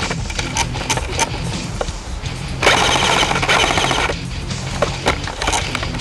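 Airsoft gunfire over background music: scattered single shots, then a rapid full-auto burst about two and a half seconds in that lasts about a second and a half.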